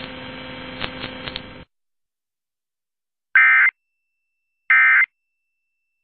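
Emergency Alert System end-of-message signal: short, identical buzzy data bursts about a second and a half apart, two of them with a third starting right at the end, marking the close of the alert. Before the bursts, a faint broadcast hiss cuts off into silence.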